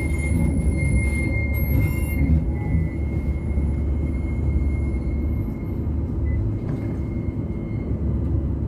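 CAF Urbos tram running along street track, heard from the driver's cab: a steady low rumble that eases a little past the middle. A thin high-pitched wheel squeal sounds over it in the first two seconds and returns faintly later.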